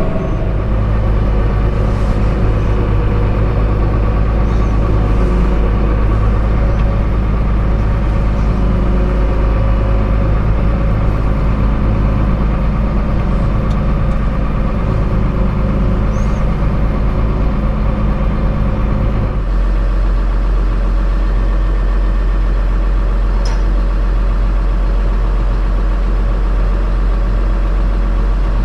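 Tractor's diesel engine running steadily, its low drone changing about two-thirds of the way through.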